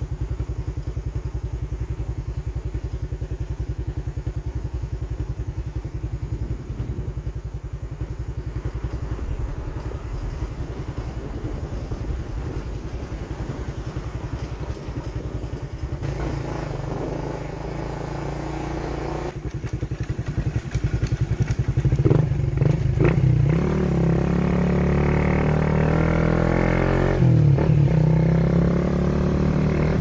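Motorcycle engine running while riding, a steady low putter at first that grows louder in the second half; over the last several seconds its pitch climbs as it accelerates, dips briefly with a gear change, then climbs again.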